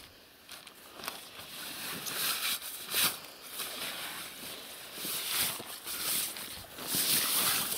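Wad of newspaper rubbing and rustling against the wet floor of an inflatable rubber boat as it is wiped dry, in several uneven strokes with a few sharp clicks between them.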